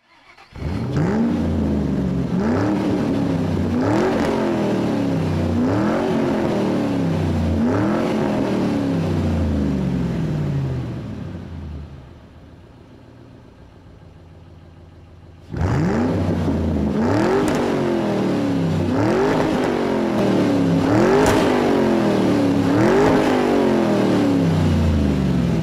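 A car engine revved again and again, each rev a rising pitch that falls back, about one every two seconds. The revving fades out for a few seconds about halfway through, then starts again.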